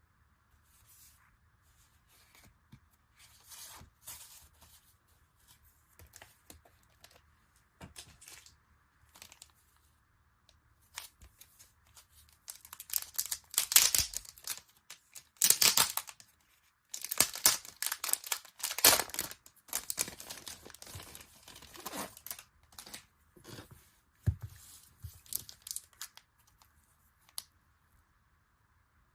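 Packaging being torn open and crinkled by hand: irregular rustling and tearing, light at first, then a loud stretch of tearing and crinkling for about ten seconds before it dies away.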